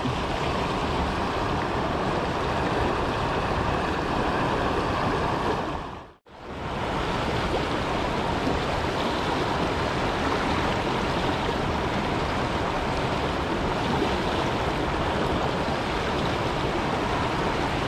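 Steady rushing of flowing river water, with a brief dropout about six seconds in.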